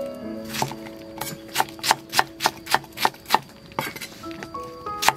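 Kitchen knife chopping on a thick wooden chopping block, a steady run of sharp knocks about three a second that stops partway through, with a couple more strokes near the end. Soft background music plays throughout.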